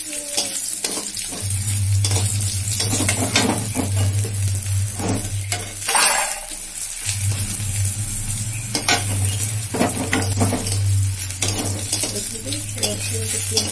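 Garlic cloves and green chillies sizzling in hot oil in a steel kadai, with a metal spatula scraping and clinking against the pan as they are stirred.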